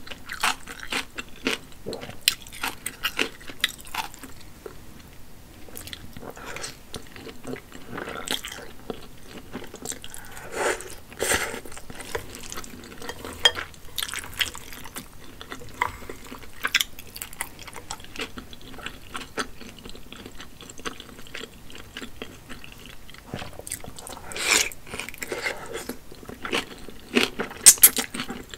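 Close-miked eating of spicy hand-pulled wide wheat noodles: irregular wet chewing, smacking and mouth clicks. The loudest burst comes near the end, as a strand of noodle is sucked into the mouth.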